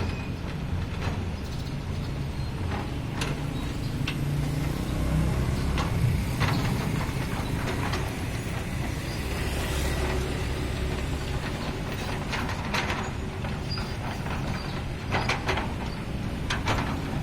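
Hydraulic excavator working: its diesel engine runs steadily under load. Scattered sharp metallic clanks and knocks come from the machine, a few in quick succession near the end.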